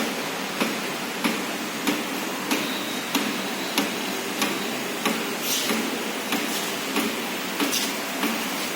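33 kW electric steam boiler running: a steady hiss under a sharp, regular tick about one and a half times a second.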